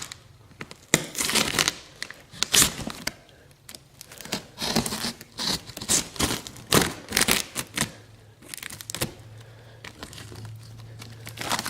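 Packaging of a mail package being torn and crumpled open by hand, in irregular rips, crinkles and scrapes.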